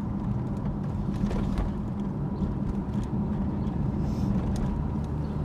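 Audi Cabriolet 2.3E's 2.3-litre inline five-cylinder engine pulling steadily uphill, heard from inside the open-top cabin over wind and road noise.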